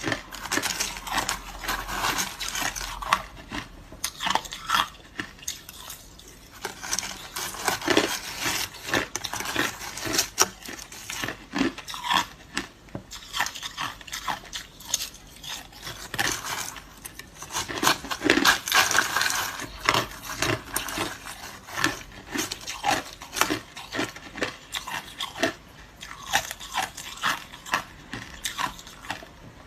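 Hard crushed ice being bitten and chewed close to the microphone: dense, irregular crunching and cracking in bursts, with a few short lulls.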